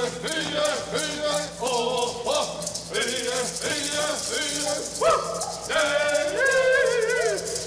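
Yé'ii Bicheii dance song sung by the dancers in chorus, their voices gliding and wavering, over a steady shaking rhythm from hand-held gourd rattles.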